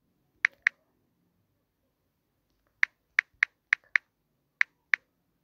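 Key-press clicks of a smartphone's on-screen keyboard as a word is typed: two clicks close together, a pause of about two seconds, then seven more in a quick, uneven run.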